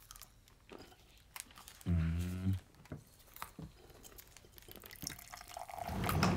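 Small liquid drips and light clicks of a drink being handled at a table, with a short low hum from a voice about two seconds in. Near the end a noisier gurgling liquid sound builds up, like a drink drawn through a straw.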